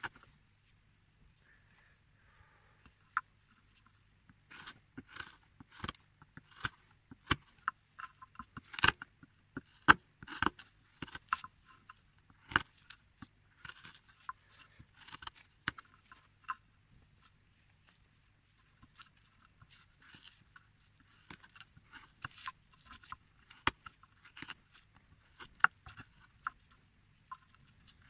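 Hand carving tool scraping and cutting into a small carved figure in short, irregular strokes with sharp ticks, pausing for a few seconds near the start and again in the middle.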